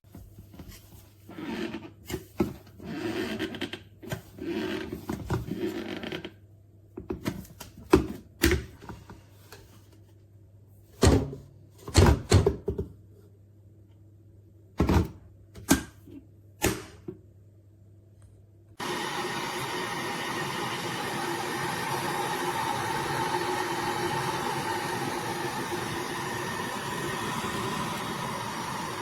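A run of sharp knocks and clunks, then about two-thirds of the way in a steady rushing hiss starts abruptly and holds: a Russell Hobbs Victory electric kettle heating water.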